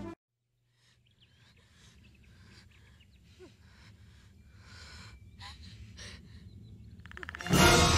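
Music cuts off at the start, and after about two seconds of near silence faint jungle ambience fades in from a film scene, with short breath-like rushes and small bird chirps, slowly growing louder. Near the end a loud burst of sound cuts in.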